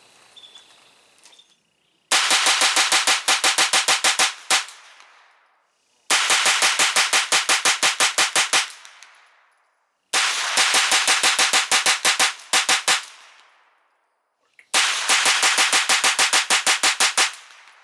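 Ruger Charger Takedown .22LR semi-auto pistol, fitted with a steel muzzle brake, firing CCI Stinger high-velocity rounds in four rapid strings of about ten shots each, roughly four shots a second, with pauses between strings.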